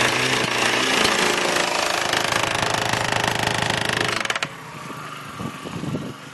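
GPD-30 gas-engine underground boring tool running hard with a fast, steady hammering rattle. About four seconds in, the sound drops off sharply.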